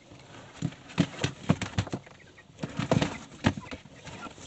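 Irregular hollow knocks and scrabbling on a cardboard box as chickens shift and scratch about inside it, in two bunches.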